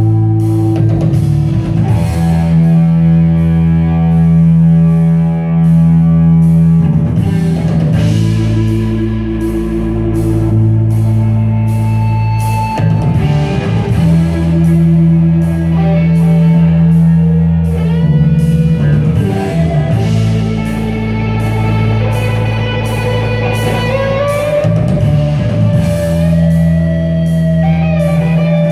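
A rock band playing live: electric guitars, bass guitar and drum kit holding slow, sustained chords, with a drum fill coming round about every six seconds.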